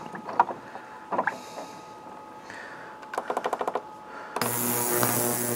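A benchtop ultrasonic cleaner starting up about four seconds in: a loud buzzing hum with a hiss over it. Just before it there is a quick run of clicks from its control panel as the timer is set.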